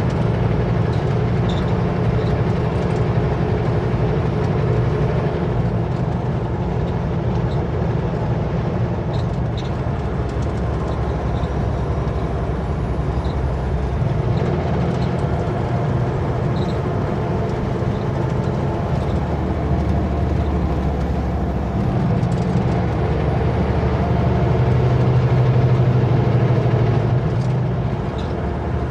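Kenworth W900L semi truck's diesel engine running steadily under way, with road noise; the engine note swells slightly about 24 seconds in.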